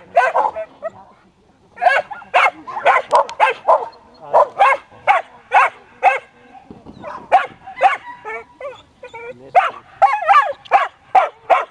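Long-haired Belgian Shepherd (Tervuren) barking while running an agility course: rapid short high barks and yips, several a second, in runs broken by brief pauses.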